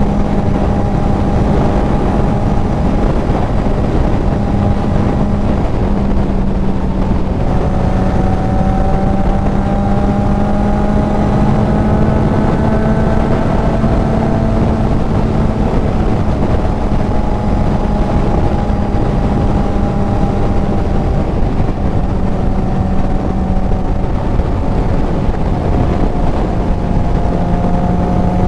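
Kawasaki Z900's inline-four running through a CS Racing full exhaust at a steady cruise, the engine pitch rising and dipping gently with small throttle changes, under heavy wind rush on a helmet-mounted mic.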